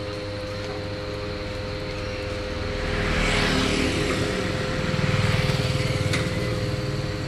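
Road traffic passing close by: a swell of rushing noise about three seconds in, then a low engine rumble around five seconds, over a steady hum.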